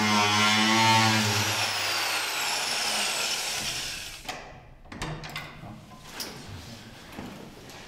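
Background music with a low, droning string-like tone and falling sweeps, fading out over the first four seconds. After that a few sharp clicks from a door lock and latch as an apartment door is opened.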